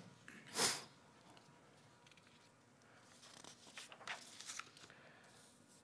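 Sheets of paper being handled and turned at a lectern: faint crackling rustles a few seconds in, after a short, brief hiss about half a second in.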